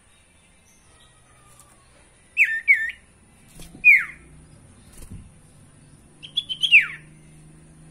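Caged sirtu (an iora) calling in short whistled notes that fall in pitch: two quick ones between two and three seconds in, a single one about a second later, then a rapid run near the end finishing in a longer falling whistle.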